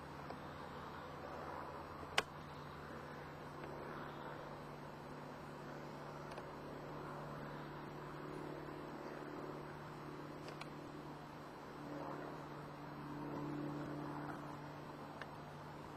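Steady low hum under outdoor background noise, with one sharp click about two seconds in and a low sound that swells and fades near the end.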